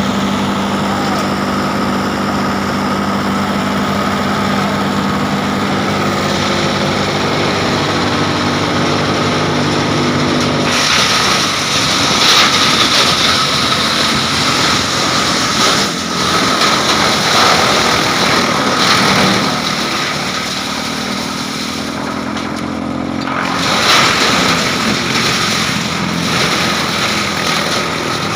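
Heavy-duty double-rotor wood chipper running loud and steady. About ten seconds in, its sound turns rougher and noisier and surges up and down for the rest of the time, briefly easing near the end.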